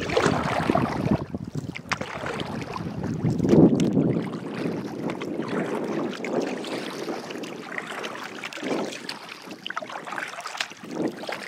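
Kayak moving across choppy water: water splashing and lapping against the hull with paddle strokes, and wind buffeting the microphone, rising and falling in irregular surges every few seconds.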